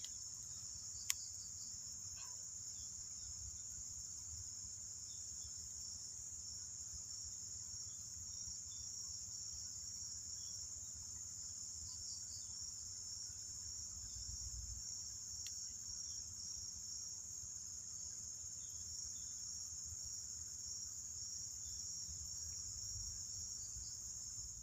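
Insect chorus in the surrounding vegetation: a steady high-pitched trill with a fine, even pulsing that runs on unbroken. A single sharp click sounds about a second in, over a low rumble.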